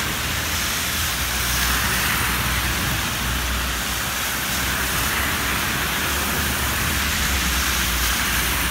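Heavy rain pouring down in a steady, even hiss, with a steady low rumble beneath it.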